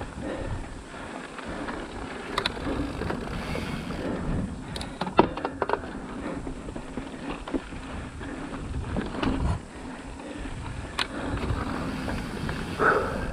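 Mountain bike rolling fast down a dry dirt singletrack: steady tyre rumble with wind on the microphone, and sharp clicks and knocks from the bike over bumps, the loudest about five seconds in.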